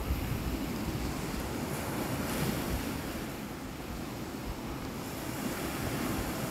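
Lake Superior waves washing onto a stony beach, an even rushing noise that swells briefly about two seconds in, with wind buffeting the microphone as a low rumble.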